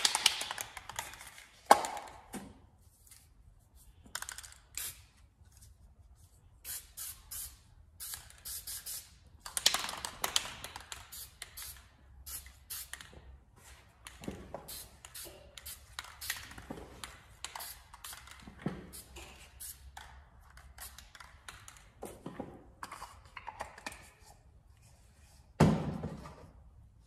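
SEM Guide Coat Black aerosol spray can misting a light guide coat onto primed gas tanks, hissing in many short bursts. Knocks as the can is handled, the last near the end as it is set down on the bench.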